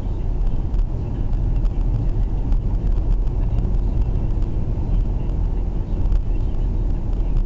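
Steady low rumble of a car cruising at road speed, heard from inside the cabin: tyre, road and engine noise, with a few faint clicks.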